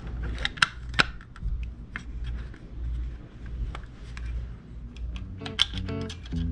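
Small clicks and light rustling from model-car parts being handled at a workbench, with two sharper clicks about half a second and a second in. Background guitar music comes in near the end.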